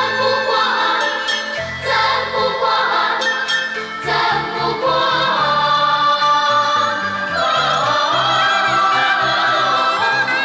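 Closing theme music: singing with a choir over instrumental accompaniment, with a few sharp percussive strikes in the first few seconds.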